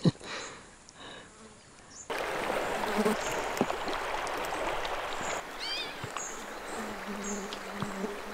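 Steady rush of flowing river water starting about two seconds in, with birds chirping over it: a short run of rising-and-falling notes midway and repeated short high chirps.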